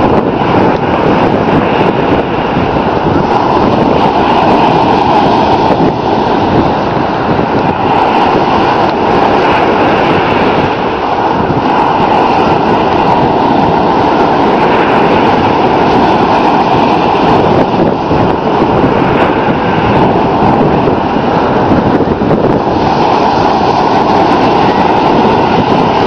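Loud, steady roar of wind buffeting the microphone mixed with ocean surf breaking, rising and falling every few seconds.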